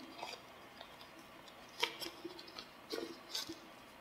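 A few faint, scattered clicks and taps of hands handling a soft PVC waterproof camera case fitted around a DSLR lens.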